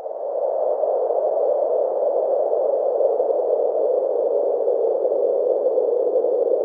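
Steady rushing drone of a soundtrack intro, swelling in at the start and then holding level, with two faint thin high tones above it.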